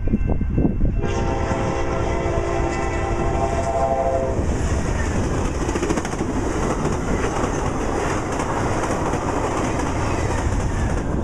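Amtrak passenger train's horn sounding one long blast from about a second in until about four seconds in. Then the passenger cars rush past close by, their wheels clattering over the rail joints.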